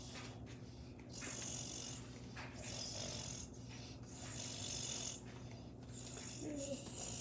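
Noisy breathing close by, four breaths about a second and a half apart, over a faint steady hum.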